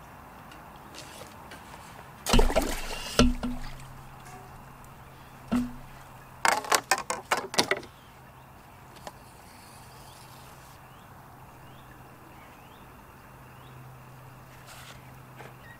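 Pole-fishing tackle handled at a seatbox: two loud knocks about two and three seconds in, another just before six seconds, then a quick run of about seven sharp clicks over a second or so.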